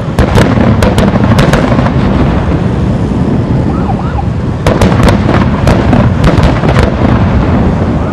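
Aerial fireworks shells bursting overhead: a continuous heavy rumble of booms and echoes, with sharp bangs several times in the first second and a half and a rapid string of them from about halfway in until near the end.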